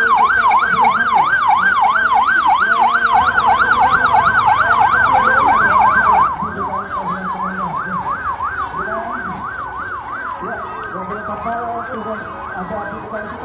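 Police car electronic siren in a fast yelp, its pitch rising and falling about four times a second. It is loud at first, then about six seconds in it abruptly becomes quieter and goes on sounding.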